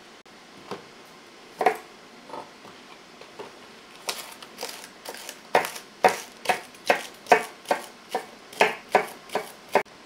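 Kitchen knife chopping vegetables on a cutting board: a few separate knocks at first, then from about four seconds in a steady run of sharp cuts, about two to three a second.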